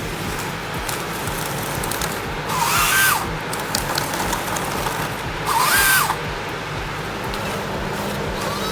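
A power tool revs up briefly twice, about three seconds apart, each time a short whine that rises, holds and drops, over a steady engine hum.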